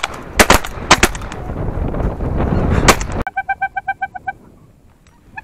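Shotguns firing four or five shots in quick succession over about three seconds. The sound then cuts off abruptly, and a rapid pulsing tone follows for about a second.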